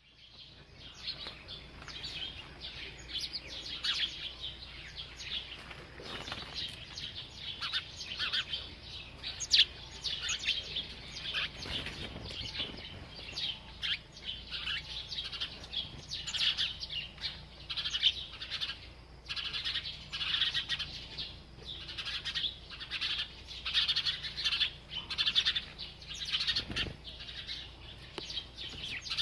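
A group of sparrows chirping continuously, with many short overlapping chirps. Now and then comes a brief flutter of wings.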